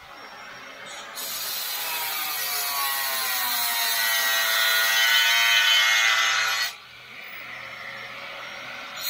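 Angle grinder cutting through a metal post. It starts about a second in, and its whine drops in pitch as the disc bites into the metal. It runs for about five and a half seconds, stops suddenly, then starts again right at the end.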